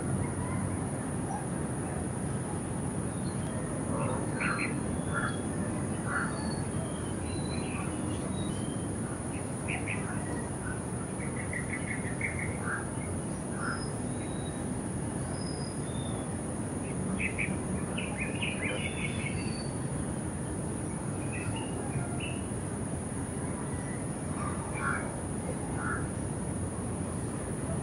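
Naked-faced spiderhunter calling: short, sharp notes come in scattered clusters with gaps between them. Under the calls runs a steady low rumble of city noise and a constant thin high-pitched tone.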